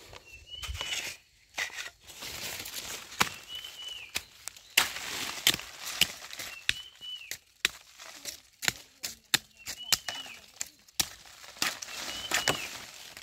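Dry leaf litter and twigs crackling and snapping as someone pushes through forest undergrowth on foot. A short, arched whistled bird call repeats every two to three seconds in the background.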